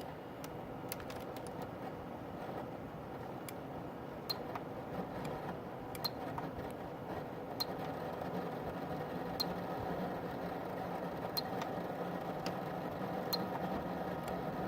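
Koolance 985 Rev2.0 cooling unit running with a steady whir that slowly grows louder, broken by sharp ticks about every one to two seconds. This is the noise problem its owner is asking about.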